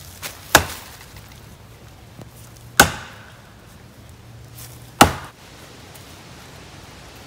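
Axe chopping into the trunk of a small standing tree: three strikes about two seconds apart.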